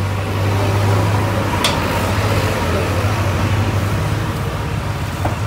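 Steady low engine rumble with a haze of street noise around it, and one sharp click about a second and a half in.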